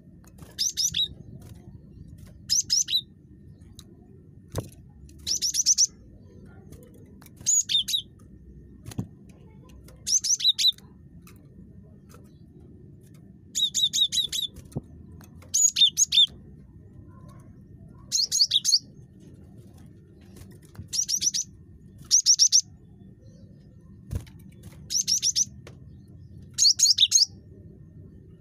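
Cinereous tit (gelatik batu) calling: short bursts of fast, repeated high chirping notes, one burst every two seconds or so, over a faint low background hum.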